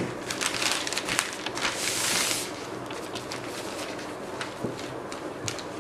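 A folded strip of newspaper rustling as it is handled, with a few light taps and a louder rustle about two seconds in.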